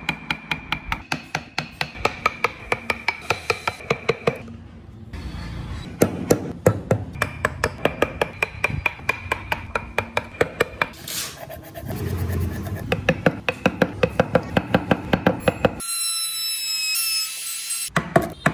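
Chisel being tapped through Fujian cypress with quick, even mallet strikes, about four or five knocks a second, in runs of several seconds with short pauses. Near the end a steady, high ringing tone lasts about two seconds.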